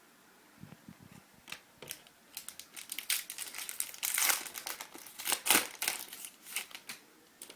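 Plastic trading card pack wrapper being torn open and crinkled in the hands: a run of irregular crackles and rustles, heaviest in the middle.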